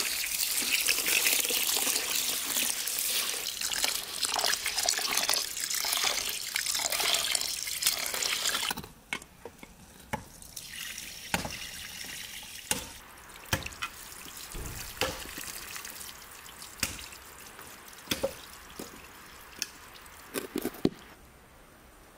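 Water poured from a clay jug into an aluminium bowl of rice, splashing steadily as the rice is rinsed by hand, stopping about nine seconds in. After that it is much quieter, with scattered light knocks and drips as the metal bowl is handled.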